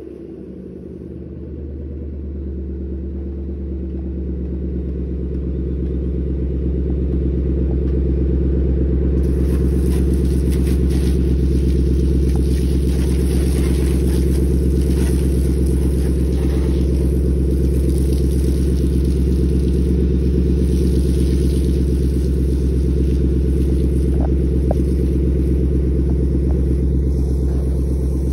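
A steady low droning hum with several pitches stacked together, swelling over the first several seconds and then holding level.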